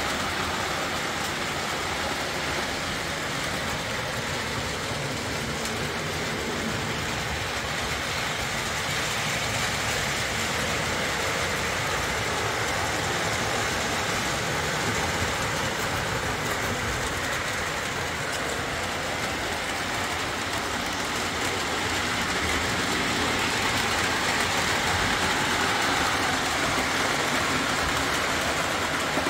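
Lionel O-27 model train with Alco diesel locomotives running steadily on its track: a continuous rumble of electric motors, gears and wheels, getting a little louder near the end.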